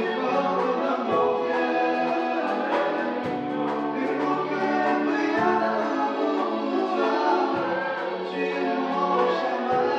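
Gospel worship singing: several voices singing together over keyboard accompaniment, with the low chords changing about every two seconds.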